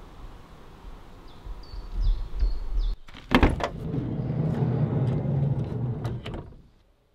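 A few short bird chirps, then a loud sharp mechanical clunk about three seconds in, followed by a steady low rumble with scattered clicks that fades out about half a second before the end.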